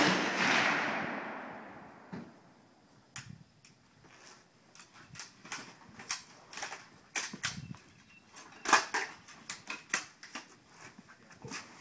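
Rifle shot echoing away down the range over about two seconds, then a string of light, sharp clicks and knocks of handling at the firing line.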